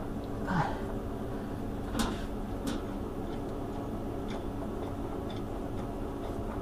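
Light metallic clicks and knocks, the sharpest about two seconds in, as a Tormach mill's Y-axis ball screw is turned and worked by hand inside the machine's base, over a steady low hum.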